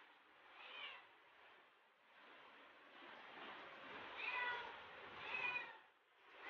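A cat meowing: two clear meows about four and five seconds in, each about half a second long, with a fainter one near the start.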